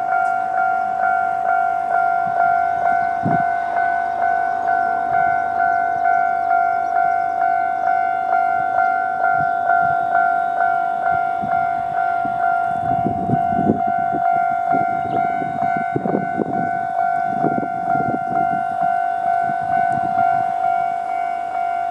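Japanese level crossing's electronic warning bell ringing in its normal tone, a bright ding repeating steadily about one and a half times a second. Just past halfway, a Kiha 2200 diesel railcar's wheels rumble and clack across the crossing beneath the bell for several seconds.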